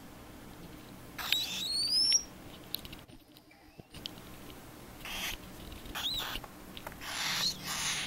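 Young cockatiel chicks giving raspy, hissing calls in several separate bursts, some ending in a short rising chirp. The loudest comes about a second in.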